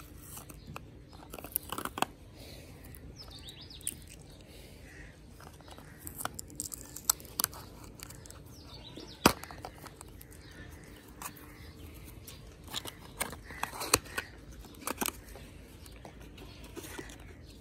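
Small paperboard medicine box handled and opened by hand: scattered sharp clicks, crinkles and snaps of the cardboard flaps, with the loudest snaps about nine and fourteen seconds in.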